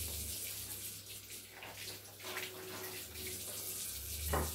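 Kitchen tap running into a sink as green peppers are rinsed by hand, with light splashing and one short knock near the end.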